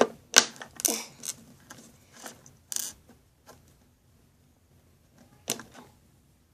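Small hard-plastic toy parts clicking and tapping as an accessory's peg is pushed into the hole of a Littlest Pet Shop figure. Irregular clicks, densest in the first second and a half, then a few scattered taps.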